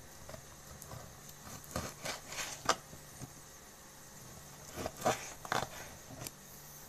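Kitchen knife cutting raw pork ribs on a cutting board: irregular soft knocks and scrapes of the blade on the board, in two clusters about two and five seconds in. A faint steady hum runs underneath.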